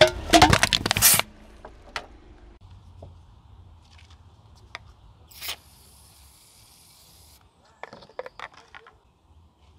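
A car tyre crushes an aerosol spray can, giving a loud crunching hiss that lasts about a second. Later, a can of shaving foam is sprayed out: a short burst about five and a half seconds in, a couple of seconds of soft hiss, then a few short sputtering spurts near the end.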